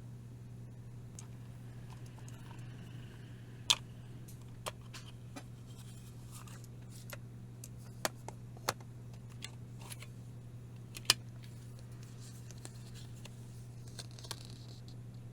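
Irregular sharp clicks and light taps of hard plastic cases and packaging being handled, the loudest about four, eight and eleven seconds in, over a steady low hum.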